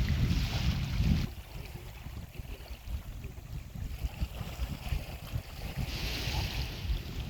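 Wind buffeting the microphone, a loud gust for about the first second that cuts off suddenly, then lighter uneven gusting with another stronger gust near the end.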